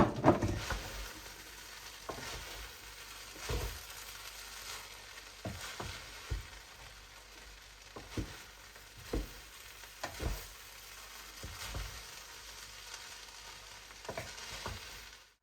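Parboiled rice frying in a pot with a faint steady sizzle, stirred with a spoon that knocks against the pot every second or two; the loudest knock comes right at the start.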